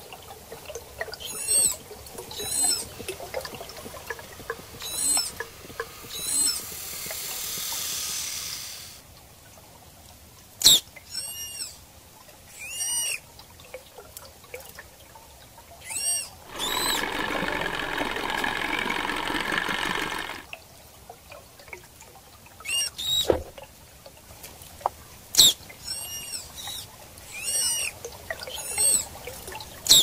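Manatee vocalizations recorded underwater: short, high-pitched chirps and squeaks with overtones, given singly and in quick runs. A few seconds of hiss come about six seconds in, and a longer stretch of rushing noise about seventeen seconds in. A few sharp clicks are scattered through, the loudest one near eleven seconds.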